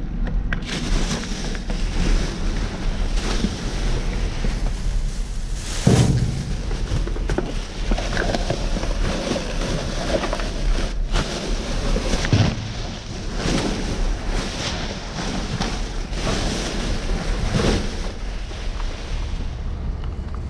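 Plastic trash bags rustling and shifting as they are handled inside a dumpster, with heavy rubbing on the microphone and a few dull knocks.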